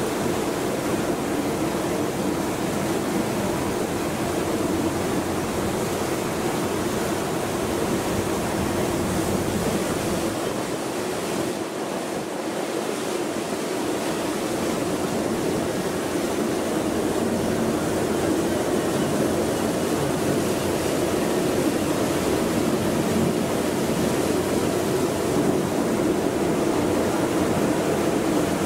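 Steady noise of a passenger boat under way on a river: its engine running with a constant hum, mixed with water rushing past the hull.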